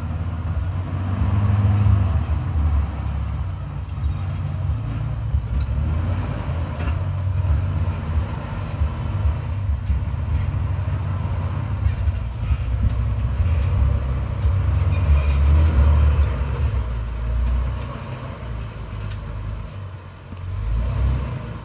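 Off-road vehicle engine running under load over rough trail, a low rumble that rises and falls, easing off near the end.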